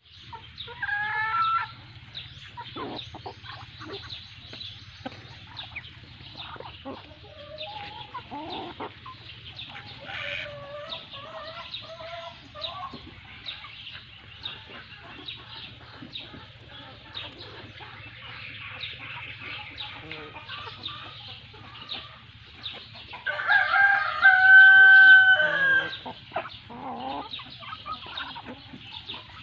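Chickens clucking as they feed, over a steady patter of short pecking taps. Near the end a rooster crows once, loudly, for about two and a half seconds.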